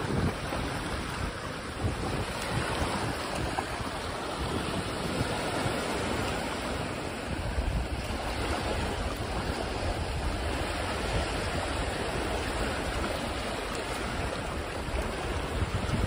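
Small sea waves lapping and washing up a shallow sandy shore and around rocks, a steady rushing wash. Wind buffets the microphone with uneven low rumbles.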